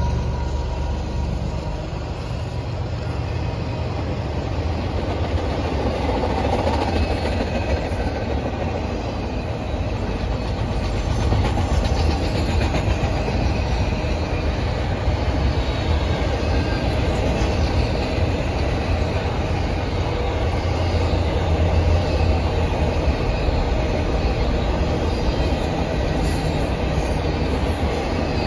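Double-stack intermodal container train's well cars rolling past: a steady low rumble of steel wheels on rail.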